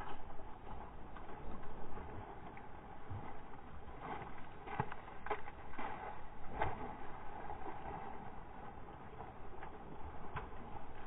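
Steady boat and open-water noise, with sharp splashes from a lingcod thrashing at the surface beside the hull, thickest between about four and seven seconds in.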